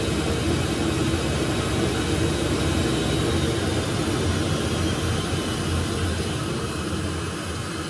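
Router spindle on a Powell CNC DCT3 digital cutting table running as it cuts 3 mm Dibond aluminium composite panel: a steady machine noise with a low hum, easing off slightly near the end.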